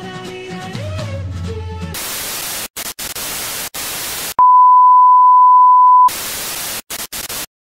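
Music breaks off into loud TV static hiss, cut by a few short dropouts. Partway through, the hiss gives way to a loud, steady test-tone beep lasting almost two seconds. Then the static returns and cuts off suddenly into silence near the end.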